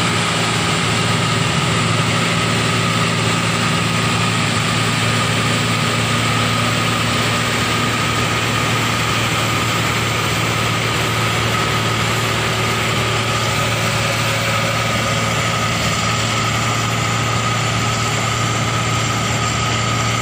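8070 combine harvester running steadily while cutting and threshing rice: a constant engine drone with a steady high whine and the rush of the machinery over it.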